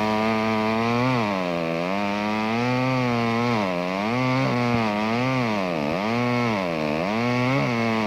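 McCulloch Mac 10-10 two-stroke chainsaw cutting into a tree trunk. Its engine pitch dips and climbs back again and again, roughly once a second, as the chain loads up in the wood.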